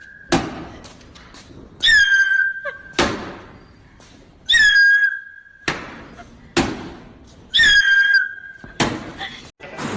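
A whistle blown in three loud blasts, each about a second long and sliding slightly down in pitch. Each blast is followed about a second later by a sharp knock.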